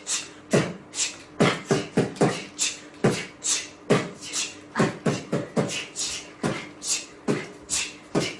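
A person sneezing in a rapid-fire string of short, breathy sneezes, about three a second, with no pause between them.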